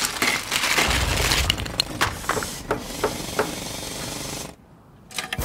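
Plastic Lego bricks being rummaged and clicked together, a dense rattle with a few sharper clacks, stopping about four and a half seconds in. A short rush of hiss starts right at the end.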